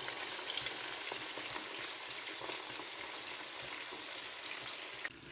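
Spice-marinated chicken drumsticks frying in hot oil in a pan: a steady sizzle with small scattered crackles and pops. It cuts off abruptly near the end.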